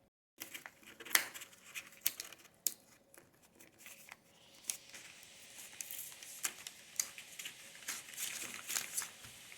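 The retail pack of a USB pen drive being crinkled and torn open by hand: sharp clicks and rustles, getting denser about halfway through.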